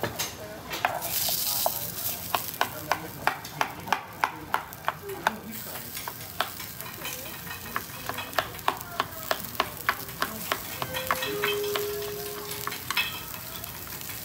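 Okonomiyaki cooking on a hot griddle, sizzling, while a utensil clinks against metal in a quick steady rhythm of about three strikes a second, which thins out to a few scattered clicks about eleven seconds in.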